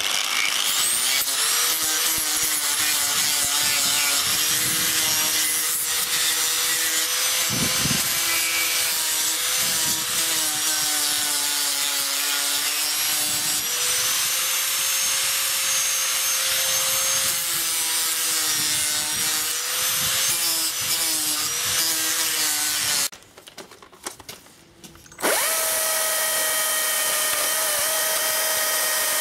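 Angle grinder with a sanding disc spinning up and grinding the shaped wooden wing pieces, its whine dipping and recovering as it is pressed into the wood; it stops about 23 seconds in. About two seconds later a Stihl chainsaw starts and runs steadily at high speed over a wood block in a vise.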